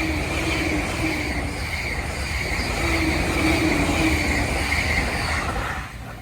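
Train passing at high speed close by: a loud, steady rush and rumble of wheels on rail that holds for about six seconds and drops away suddenly near the end as the train clears.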